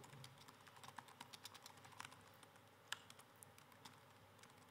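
Faint typing on a laptop keyboard: quick, irregular key clicks that grow sparser after about three seconds.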